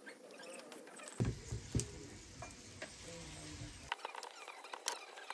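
Faint kitchen handling sounds: a steel spoon scooping mashed potato filling onto a round of paratha dough, then hands pressing and working the dough on a wooden board, with scattered small clicks and taps and a couple of soft thumps a little after a second in.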